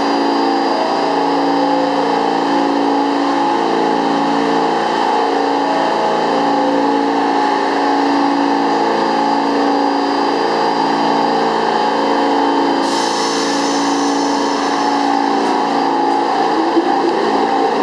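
R46 subway train standing at the platform, with a steady hum of overlapping tones that shift in pitch every second or so. A hiss of air joins about thirteen seconds in, and near the end a rising rumble comes as the train begins to pull out.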